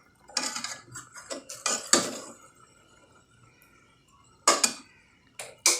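Spoon stirring and scraping in a pot of cooking custard, with a run of clinks against the pot in the first two seconds, a quieter stretch, then two sharp knocks on the pot near the end.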